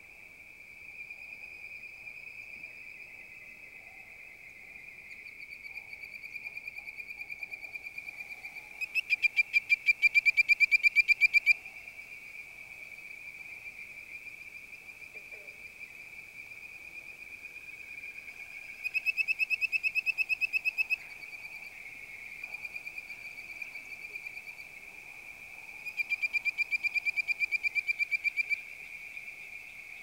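Bird-voiced treefrogs (Hyla avivoca) calling: three loud bouts of rapid, evenly repeated whistled notes, each about two to three seconds long, with fainter bouts between them. Underneath runs a steady high-pitched chorus drone.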